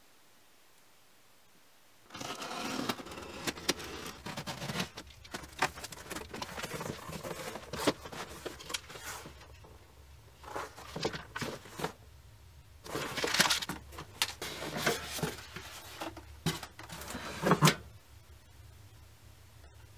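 Cardboard box being opened and its contents handled by hand, starting about two seconds in: crinkling of plastic wrap, rustling of paper and cardboard, with scattered knocks and clicks.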